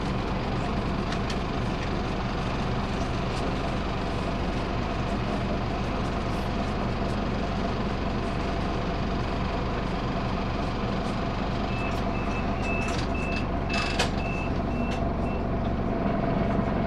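A Scania CN270UB city bus's Scania DC9 five-cylinder diesel idling steadily, heard from inside the passenger cabin. About twelve seconds in, a quick run of short, high electronic beeps sounds for about four seconds, with a sharp click in the middle. Near the end the engine note rises a little.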